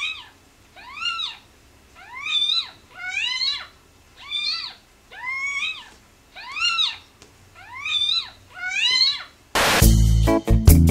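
A cat meowing over and over, about one meow a second, each meow rising then falling in pitch. Just before the end it cuts suddenly to guitar music.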